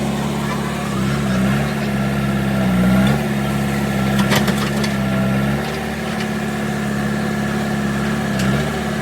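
Diesel engine running steadily, its pitch dipping briefly a few times as the load changes. A short clatter of knocks comes about four seconds in.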